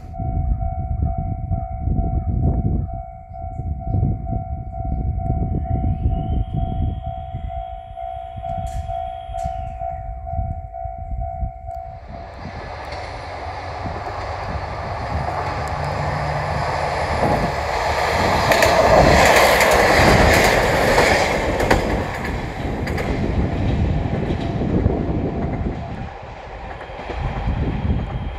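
Railway level-crossing alarm ringing with a steady pitched tone over a low rumble; about twelve seconds in, a diesel railcar on the JR Ibusuki Makurazaki Line approaches and passes over the crossing. The train noise of wheels on rails swells to its loudest a few seconds after the halfway point, then eases off while the crossing alarm keeps ringing faintly.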